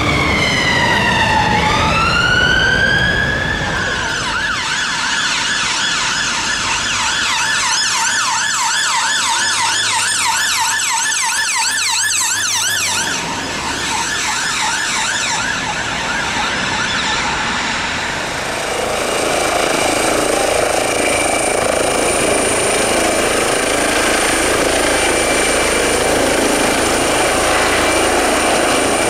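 An emergency vehicle siren: a slow wail falling and rising for the first few seconds, then switching to a fast yelp that fades out around two-thirds of the way through. After that a steady high whine over a rushing noise takes over.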